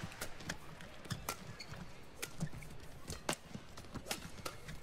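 A fast badminton doubles rally: a run of sharp racket strikes on the shuttlecock, roughly one every half-second to second, over the low hum of the arena.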